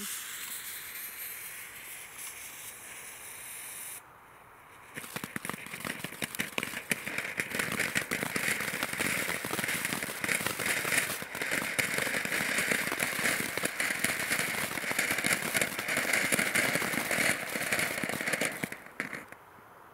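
Broekhoff Crackling Cauliflower, a small category 1 ground fountain firework. Its fuse hisses for about four seconds, then after a brief lull the fountain sprays with a dense, steady crackling of popping stars for about fourteen seconds. It stops shortly before the end.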